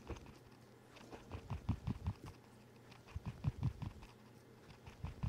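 A lidded 16-ounce jar of hot water, clear glue and glitter shaken hard in two bouts of quick strokes, about five a second, with dull thuds from the liquid inside. The first bout comes about a second and a half in and the second past three seconds. The shaking breaks up the last clumps of glitter.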